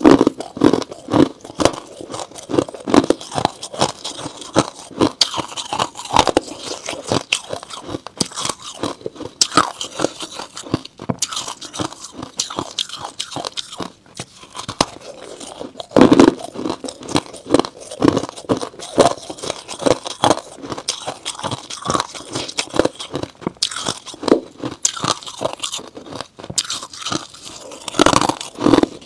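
Freezer frost bitten and chewed close to the microphone: a dense run of crisp crunches, the loudest bites about halfway through.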